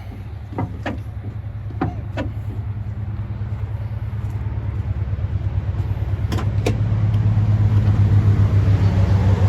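A motor vehicle engine running with a steady low hum that slowly grows louder, with a few sharp clicks in the first couple of seconds and two more about six and a half seconds in.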